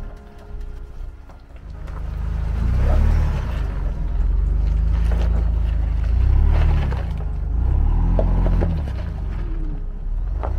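Ford Bronco engine pulling the truck over rock ledges, a deep rumble that swells up in pitch and falls back three times as throttle is fed in and let off.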